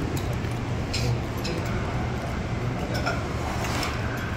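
Metal spoons clinking against plates a few times over a steady low hum of restaurant background noise.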